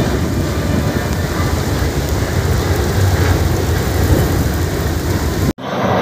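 Heavy rain driven by gusting wind, with the wind buffeting the phone microphone as a dense, ragged low rumble under the hiss of the rain. It cuts off abruptly about five and a half seconds in.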